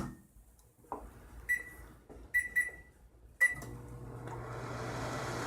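Microwave oven being set: a soft knock, then four short keypad beeps as the time is entered. After that the oven starts heating with a steady hum.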